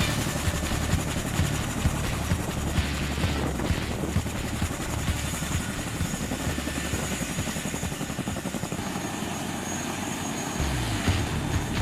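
Boeing CH-47 Chinook tandem-rotor helicopter running, with a rapid, even rotor beat over a deep engine rumble; the low rumble eases for a couple of seconds near the end, then comes back strong.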